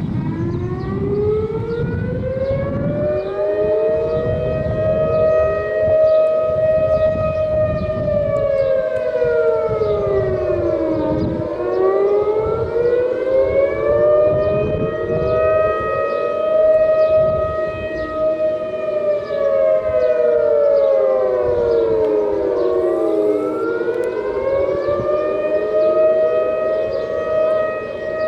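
Civil-defense outdoor warning sirens wailing. Each wail rises over about three seconds, holds a steady tone for several seconds, then falls away, repeating about every twelve seconds, with several overlapping wails out of step with one another. This is a test sounding of the early-warning siren system.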